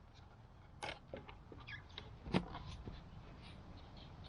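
A few light clicks and knocks of a mower's plastic air filter cover being handled and fitted onto the filter housing, the clearest knock about two and a half seconds in.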